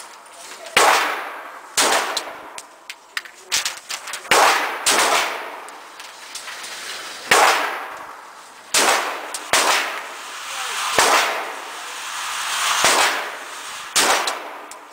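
Glock 17 9mm pistol fired in a slow, irregular string of about nine shots, each with an echoing tail.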